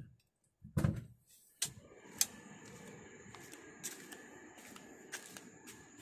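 Low thuds from a Mitsubishi Lancer's manual gear lever being moved into reverse, the louder one about a second in. From under two seconds in, a steady low rumble with scattered light clicks.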